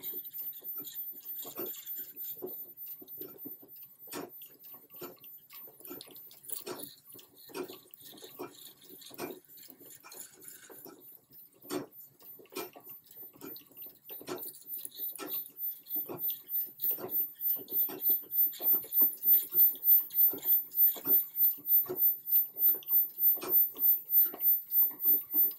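1904 Free treadle sewing machine being pedalled to wind a bobbin: the treadle and belt drive knock in a rhythm. The knocks are uneven at first, then from about halfway through become louder and steadier, about two a second, as the treadling settles into pace.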